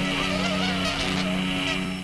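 Canada geese honking and calling repeatedly at close range, over the steady hum of the tricopter's motors.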